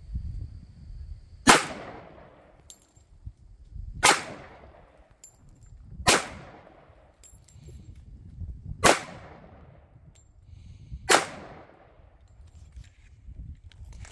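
Five single shots from a Glock 21 pistol in .45 ACP firing 230-grain ball ammunition, spaced about two to three seconds apart, each with a short echoing tail.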